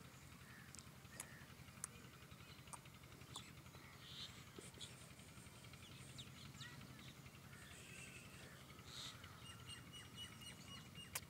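Near silence, with faint bird chirps and a few soft clicks scattered through.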